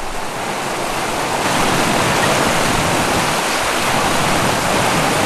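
Floodwater rushing, a steady even noise that swells a little over the first second or so.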